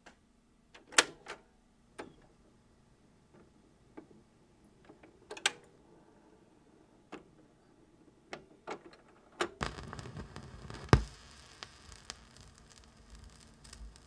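Turntable run-in before a 7-inch 45 rpm vinyl single plays: scattered light clicks from the tonearm mechanism, then about two-thirds of the way through the stylus sets down in the lead-in groove, giving surface hiss and a sharp pop before the groove goes quiet.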